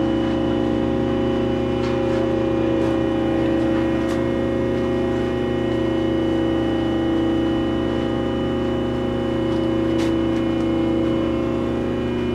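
Steady hum of shop machinery, holding several even tones with no change in pitch, with a few faint clicks and taps.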